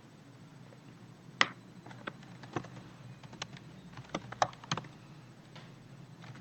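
Computer keyboard and mouse being worked: about a dozen scattered, irregular clicks and key presses, the sharpest about a second and a half in.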